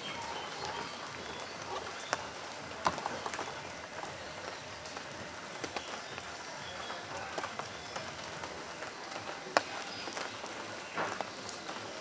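Outdoor ambience: a steady hiss with a few sharp taps scattered through it, the loudest about three seconds in and near ten seconds in.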